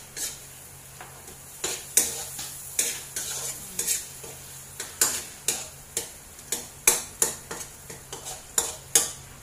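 A metal spoon stirring and scraping in a stainless steel pot while garlic and onion sauté in butter, with a faint sizzle. The utensil knocks against the pot in irregular sharp clicks, about one or two a second.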